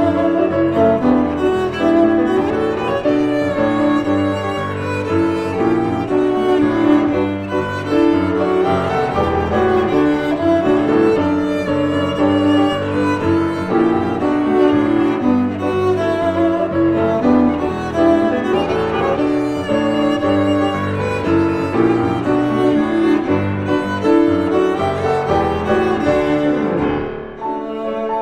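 Instrumental music: a bowed cello melody over piano accompaniment, dipping briefly near the end.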